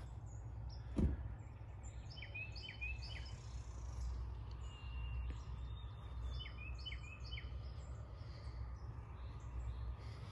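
Outdoor ambience: clusters of short bird chirps over a steady low rumble, with one sharp knock about a second in.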